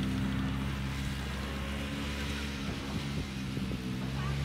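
Snowmobile engine running steadily as it tows an inflatable banana boat across snow, its pitch shifting a little around the middle.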